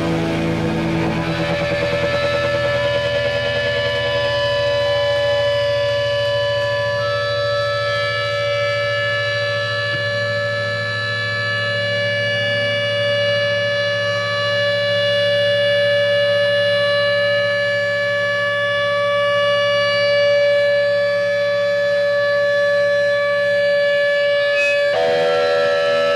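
Electric guitar and amp feedback: several steady, high-pitched tones held together over a low hum, with the tones shifting abruptly near the end.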